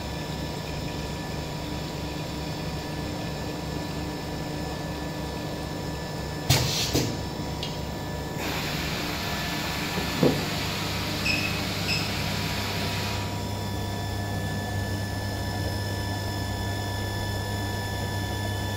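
Pneumatic paste filling machine running with a steady low hum. Sharp clicks come about six and a half and seven seconds in, and a hiss follows midway for several seconds with a few faint ticks in it.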